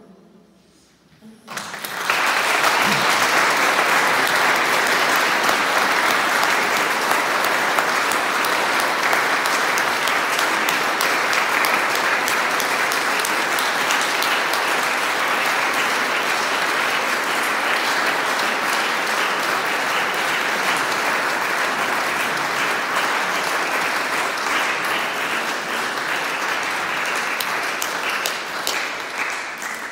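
Congregation applauding: a long, steady round of clapping that starts about two seconds in and tails off near the end.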